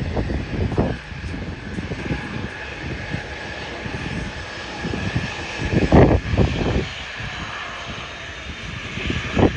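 Jet airliner's engines running at takeoff power as it departs, a steady roar with a whine near the top and irregular low rumbles, the strongest about six seconds in and again near the end.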